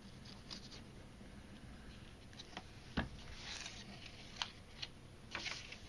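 Faint rustling and sliding of cardstock being handled on a craft mat, with a sharp tap about three seconds in and a few small ticks afterwards.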